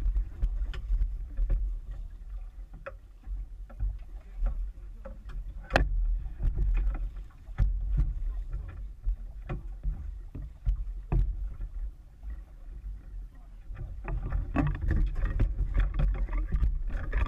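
Muffled knocks and bumps on a small boat and splashing water as a kingfish is fought at the side and hauled aboard, over a constant low rumble, all heard through a waterproof camera case. The sharpest knocks come about 6 and 11 seconds in, and the activity grows busier near the end as the fish comes in.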